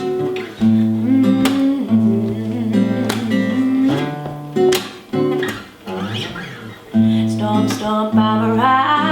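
Acoustic guitar strumming chords in an intro, with short pauses between phrases.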